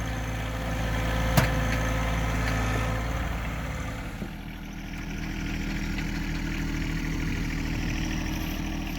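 Diesel tractor engine idling steadily, with a sharp click about a second and a half in and a lighter knock around four seconds, after which the engine note shifts slightly.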